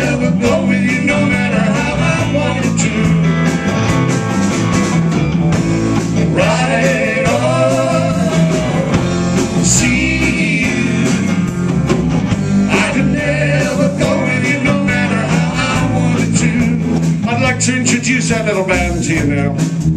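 A blues band playing live, with electric guitars, bass guitar and a drum kit, and a lead voice singing with vibrato over the band.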